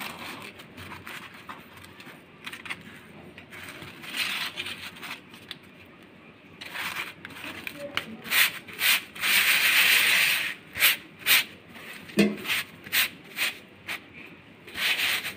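A steel spoon spreading fat over chapatis, and the chapatis rubbing against each other and the steel plate as they are handled: a run of short rubbing and scraping strokes, with a longer, louder rub about nine seconds in and a single knock a little after.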